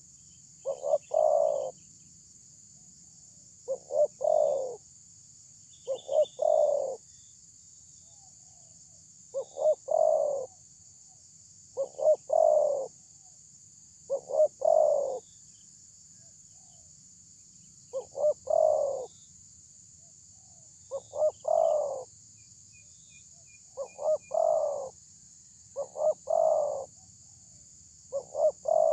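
Spotted dove cooing: each phrase is two or three short coos followed by a longer rolling coo, repeated about every two to three seconds.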